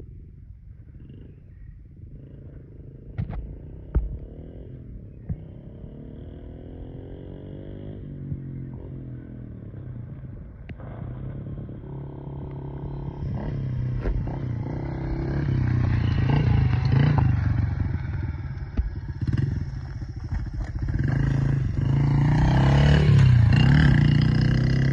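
Yamaha TT-R50 mini dirt bike's small four-stroke single-cylinder engine, faint at first and growing louder as the bike approaches and passes close, its pitch rising and falling with the throttle. A couple of sharp knocks sound about three and four seconds in.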